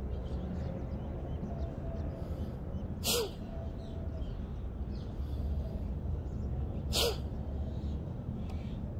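Two short, sharp, forceful breath bursts, about four seconds apart, over a steady low background rumble.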